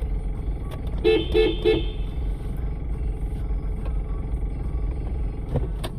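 Three quick car-horn toots about a second in, over a steady low rumble heard from inside a car's cabin.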